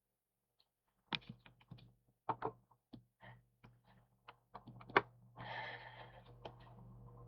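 Computer keyboard typing through a webcam's built-in microphone: irregular clicks start about a second in, with the loudest click about five seconds in and a brief rustle just after. A low steady hum comes in with the clicks.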